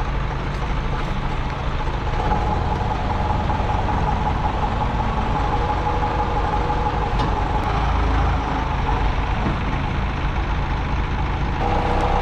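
Forklift engine running steadily while the forklift holds and raises a suspended truck-mounted crane, with a steady whine over the engine from about two seconds in.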